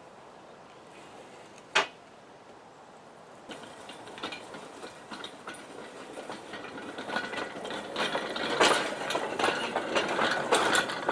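A single sharp knock about two seconds in, then a small rail wagon rolling along the narrow-gauge track, its wheels clicking and clattering over the rails and points and growing steadily louder toward the end.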